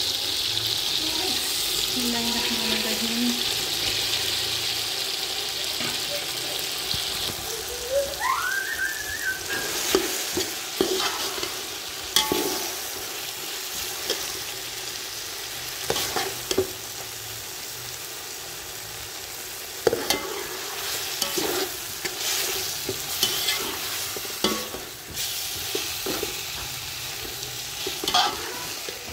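Chopped tomatoes sizzling as they fry in oil in a metal pot, with a spoon stirring and scraping through them. The sizzle is strongest for the first several seconds, then softer, and sharp knocks of the spoon against the pot sound every few seconds.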